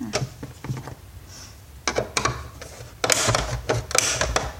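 Plastic vacuum cleaner parts being pried and wrenched apart by hand: scattered clicks and knocks, then about three seconds in a louder, denser run of clattering and scraping as the stuck piece works loose.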